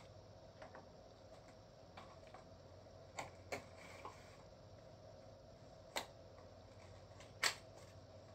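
Scattered light clicks and knocks of small plastic power adapters and their cardboard box being handled and set down on a wooden table, a handful of separate sharp clicks over a faint steady hum.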